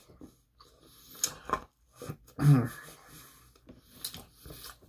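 Close-miked mouth sounds of a person eating pizza: a few sharp wet clicks and smacks, and about halfway through a short loud vocal sound that bends in pitch.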